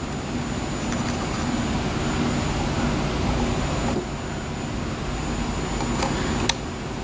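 A steady rumbling, hissing noise, like a machine running, with a brief dip about four seconds in and two sharp clicks near the end.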